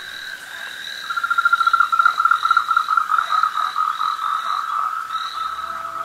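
Frog calling from a pond in a rapid pulsed trill that starts about a second in and fades slowly, with a fainter, higher call repeating above it. Faint background music comes in near the end.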